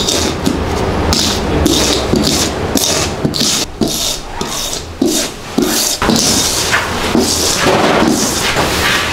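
Hand scraper scraping white disinfectant powder across a wood-grain floor in short repeated strokes, roughly two a second, as the powder is lifted off a body-fluid stain.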